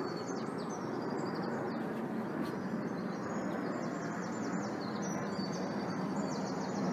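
A bird singing a long run of quick, high, falling chirps, over a steady low rumble of outdoor background noise.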